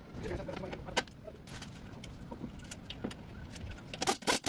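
Scattered sharp metallic clicks and clinks, one strong one about a second in, with a quick run of louder rattling clinks near the end.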